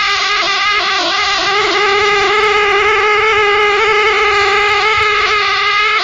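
A loud, continuous pitched drone with many overtones, wavering slightly in pitch without a break. It is picked up by a window-side security camera, and the owner likens it to a pig's squeal and cannot hear it by ear in the room.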